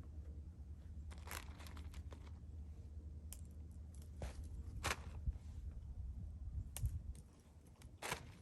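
Footsteps crunching on an icy, snow-covered trail, the boots fitted with Yaktrax traction cleats: a handful of separate crunches at an unhurried pace over a steady low rumble.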